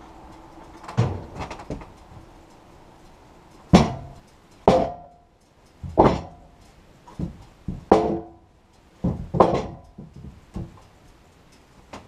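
Freshly sawn wooden boards knocked and set down on the sawmill bed: about a dozen hollow wooden thunks at irregular intervals, each with a short ringing note.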